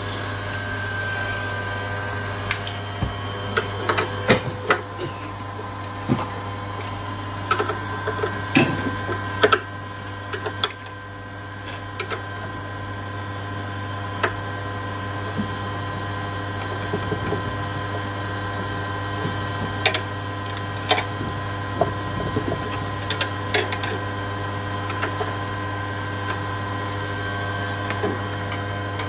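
A steady mechanical hum with a low drone and several held tones, with scattered clicks and knocks throughout.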